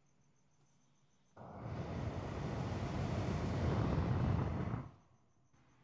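2006 Honda Accord's climate control blower fan switching on about a second and a half in. It runs as a steady, slowly building rush of air for about three and a half seconds, then cuts off suddenly. This is the automatic climate control self-test cycling the blower.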